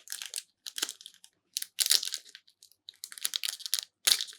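A trading-card booster pack wrapper crinkling and being torn open by hand in several short rips. The pack is stubborn to open.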